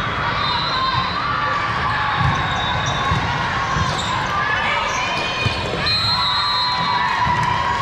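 Volleyball tournament hall ambience: frequent thuds of volleyballs being hit and bouncing on several courts, over a mix of players' and spectators' voices.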